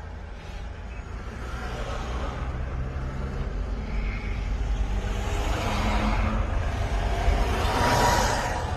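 Engine and road noise of a car driving, heard from inside the cabin. It is a steady low rumble that grows louder toward the end.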